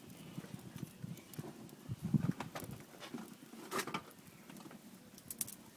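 Small wood fire of dry kindling crackling and popping with a few sharp snaps as it catches, over a low uneven rumble.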